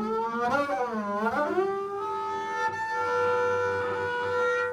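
Bowed double bass: a note that slides down and back up, then settles into a long held tone over a low sustained note, stopping near the end.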